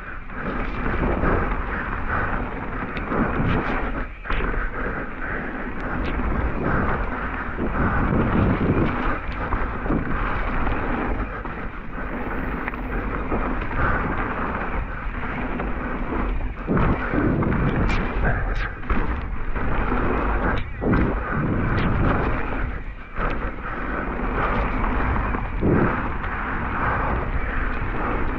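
Mountain bike riding a wet, muddy trail: continuous rumble of tyres and wind buffeting the camera microphone, broken by frequent sharp knocks and clatter from the bike over bumps.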